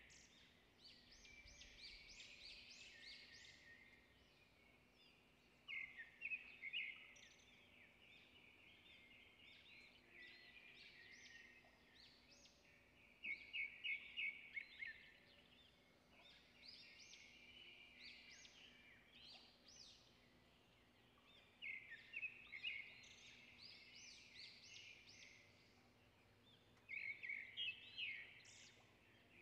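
Faint bird chirping: repeated short bursts of quick, high notes, several times, with a faint steady hum underneath.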